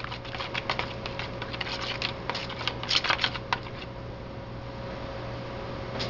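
Small wet clicks and taps of garlic being stirred into olive oil in a bowl, a cluster of spoon knocks against the bowl about three seconds in. Then only a steady low hum.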